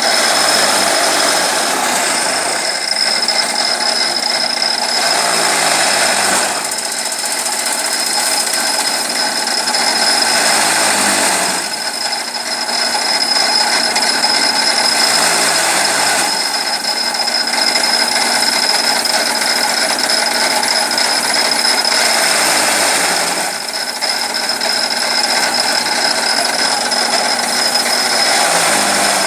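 Chaff cutter machine running steadily, with a constant high whine. Every five or six seconds its low hum sags in pitch and picks up again.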